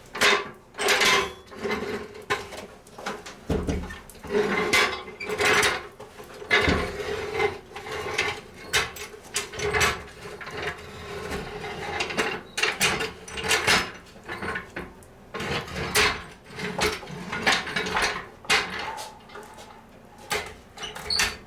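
A heavy 3-ton floor jack being hauled up stairs: repeated irregular clunks, knocks and metal rattles as it is carried and bumped along.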